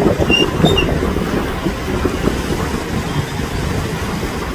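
Rain-swollen river in flood, its fast water rushing past in a steady low rumble.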